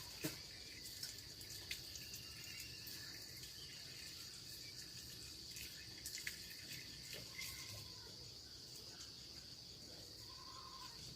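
Crickets trilling steadily at a high pitch, with a few short chirps and scattered soft clicks over the top.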